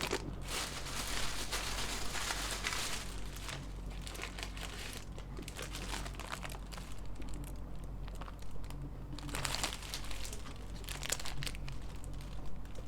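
Crinkling and rustling as small items are handled, in irregular spells, busiest in the first few seconds and again around the ninth to tenth second.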